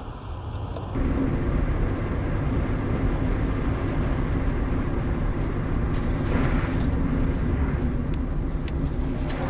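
Car driving at highway speed, heard from inside the cabin: steady engine and tyre-on-road noise. It gets louder about a second in, and a few faint ticks come in the second half.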